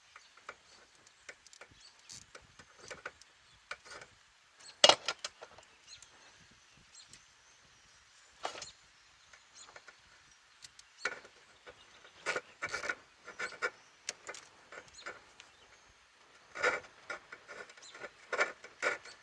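A hand tool working a worm-drive hose clamp on a radiator hose: scattered metal clicks, taps and short scrapes, with a sharp knock about five seconds in and a run of clicks near the end.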